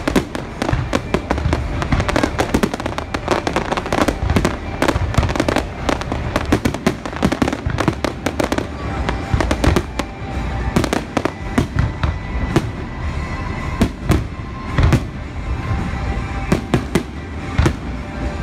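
Aerial fireworks show: a dense, continuous barrage of shell bursts, deep booms mixed with many quick crackling pops.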